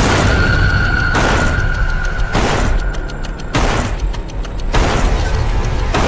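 Trailer score that comes in suddenly and loud: heavy percussive booms struck about every second and a quarter over a deep rumble, with a high held tone through the first half.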